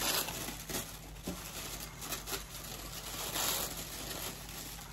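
Tissue paper rustling and crinkling in a run of small crackles as hands pull it open and rummage through it.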